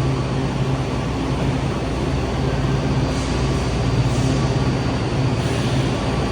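Washington Metro train running in the station: a steady rumble with a low electric hum under it.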